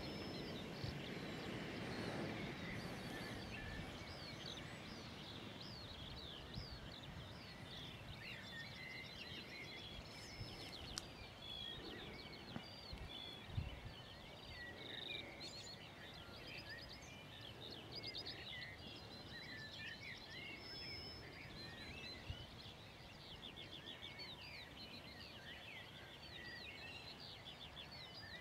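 Many songbirds singing and chirping in a steady chorus of short, high notes and trills, with a low rumble that fades out over the first few seconds.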